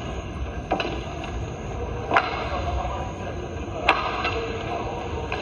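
Badminton rackets striking a shuttlecock during a rally: three sharp hits about a second and a half apart, over the steady murmur of an arena hall.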